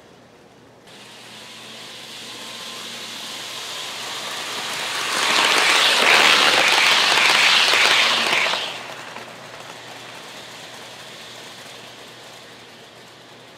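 Model train of Amtrak bilevel passenger cars running past close by: the rolling noise of its wheels on the track grows as it approaches and is loudest for about three seconds midway. As it moves off, the noise drops sharply, then fades away.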